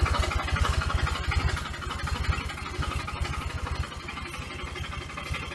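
Engine running at a steady pace with a fast, even low pulse, driving the crop sprayer while its tank mixture of fertiliser and spray is stirred. It gets a little quieter about four seconds in.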